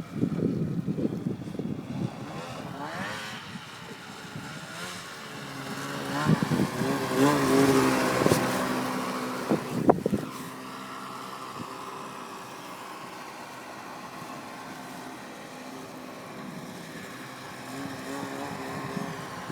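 Snowmobile engine running and revving, its pitch rising and falling, loudest about halfway through. A sharp click comes just after the loudest stretch, then the engine settles to a steadier, quieter drone.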